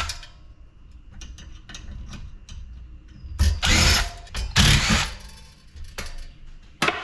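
Tools working on a metal LED light fixture being taken apart for scrap: scattered clicks and clanks of metal parts, with two loud bursts about half a second long each a little past halfway.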